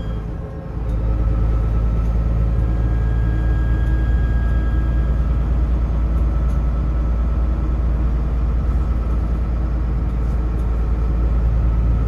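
Dennis Trident double-decker bus's turbocharged diesel engine running under way, heard from the upper deck. It settles into a steady deep rumble about a second in, with a thin high turbo whistle held faintly above it.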